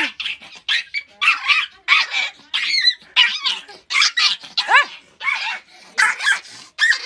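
Small Pomeranian yapping rapidly and without pause, about two or three high-pitched yaps a second, some of them rising and falling in pitch.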